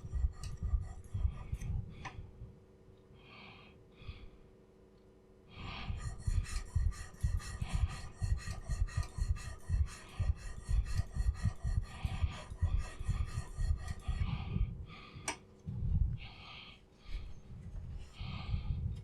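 Steel chisel edge rubbed back and forth on an oiled carborundum sharpening stone: a quick, even run of scraping strokes, several a second, honing the edge until a burr forms. The strokes pause briefly a few seconds in, and there is one sharp click near the end.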